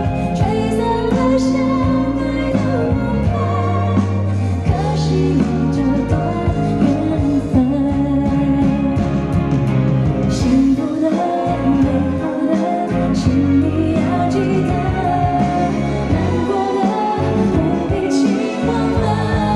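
Live pop ballad: a woman singing with band accompaniment over a steady bass line.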